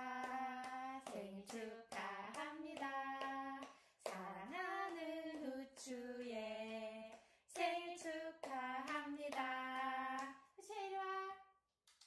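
A voice singing a birthday song in slow phrases of held notes, with hand claps. The song ends about a second before the close.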